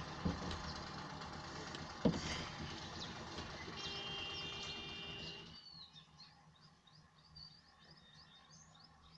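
Steady hum of an idling vehicle engine, with one sharp click about two seconds in. The hum drops away about halfway through, leaving a small bird chirping in quick, repeated short notes.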